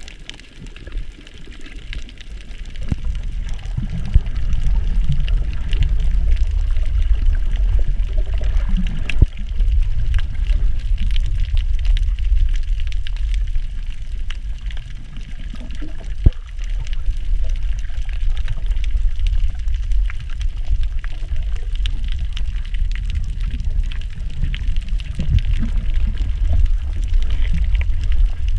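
Water moving around an underwater camera: a steady muffled low rumble with sloshing, growing louder about four seconds in, with scattered faint clicks.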